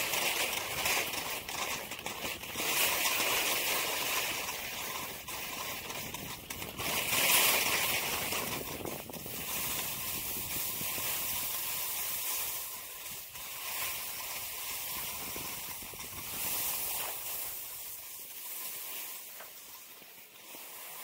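Skis hissing and scraping over packed snow, swelling with each turn and dying down near the end as the skier slows.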